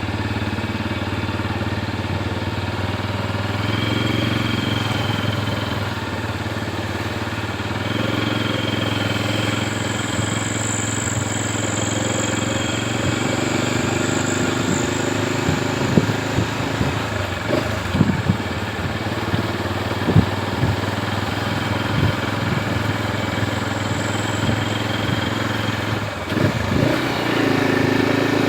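Vehicle engine running steadily at low speed, with a few short knocks around the middle.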